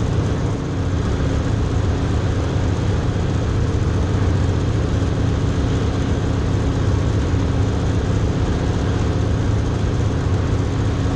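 Steady drone of a de Havilland DHC-2 Beaver's engine and propeller in cruise flight, heard from inside the cockpit.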